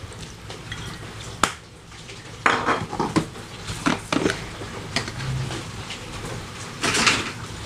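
Kitchen handling sounds: a fish sauce bottle and utensils being handled over a clay mortar. There is one sharp click about one and a half seconds in, then a few brief clatters.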